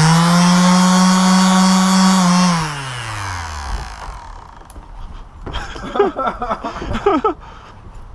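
Makita 5-inch orbital sander switched on, running at a steady pitch for about two and a half seconds, then switched off and winding down over about a second.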